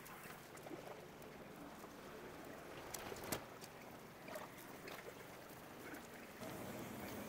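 Faint airport terminal ambience: a steady low hum with scattered light clicks and taps, one sharper click about three seconds in. The hum grows louder near the end.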